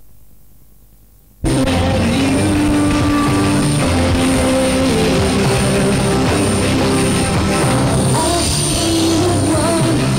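Faint cassette tape hiss, then about a second and a half in a loud sound-collage passage cuts in abruptly: music-like sustained tones layered over a steady rushing noise, with a thin high whine above.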